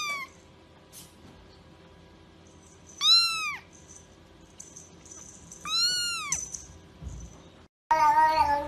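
A young kitten mewing: short, high-pitched arching mews, two of them about 3 s apart after the tail of one at the start. Near the end a louder, lower and longer adult cat meow begins.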